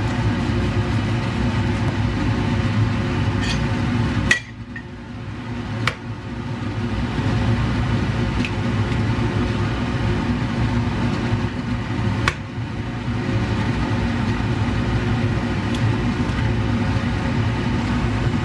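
Steady low hum of the kitchen stove area while the tomato sauce cooks in the pan. A few sharp clinks of a utensil against the pan come about four seconds in, about six seconds in and about twelve seconds in. Just after the first clink the hum drops away, then builds back over a couple of seconds.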